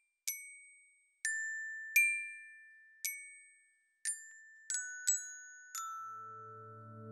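Music intro: a slow melody of single glockenspiel-like bell notes, about eight, each struck and left to ring out, mostly stepping down in pitch. About six seconds in a soft low backing chord enters and swells.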